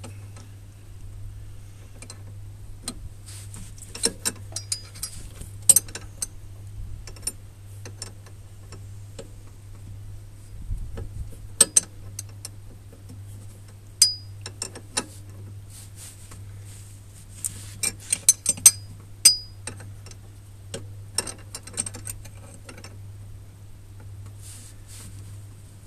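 Spanner working a steering track rod end locknut on a mobility scooter: irregular sharp metal clicks and clinks, some with a short metallic ring, with a quick run of clicks late on as it is tightened.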